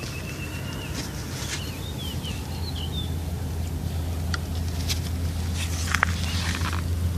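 Homemade RC excavator's motors running with a steady low hum that grows slowly louder as it works, with scattered clicks and knocks from its chain-driven tracks and digging gear.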